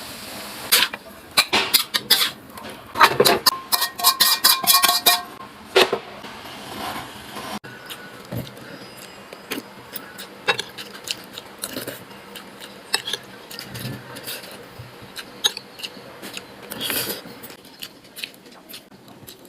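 Utensils clinking and scraping against dishes: a quick run of clinks in the first six seconds, some ringing briefly, then softer, sparser taps.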